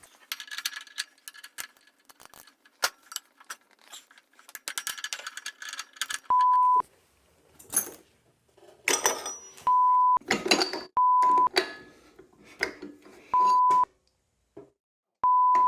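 Metal clinking and clicking of a spanner socket and tools working at a Dana 44 hub lock nut, broken five times by a short, loud, steady beep, the kind of bleep edited in over swearing.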